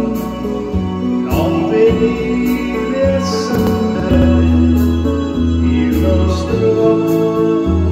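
A man singing an Italian song into a microphone over a backing track with keyboard, bass and a steady drum beat.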